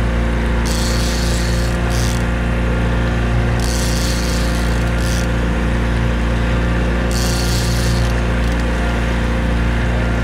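Boat motor running steadily, with several separate bursts of fishing-reel drag buzzing as a hooked fish pulls line off the reel.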